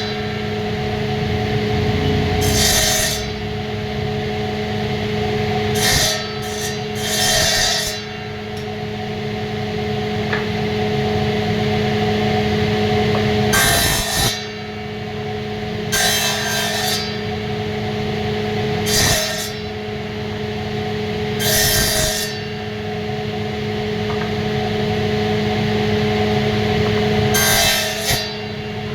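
Woodworking: a motor hums steadily throughout while wood is cut or rubbed in about a dozen short, hissing strokes at irregular intervals.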